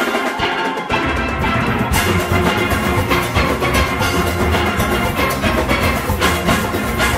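Full steel orchestra playing a calypso: many steelpans over the drums of the rhythm section, with the bass filling in about a second in.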